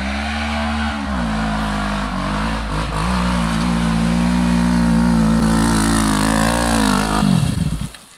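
Quad (ATV) engine revving hard under load as it climbs a steep sand hill, with a short dip in revs about a second in. Near the end the revs fall away and the engine sound drops off.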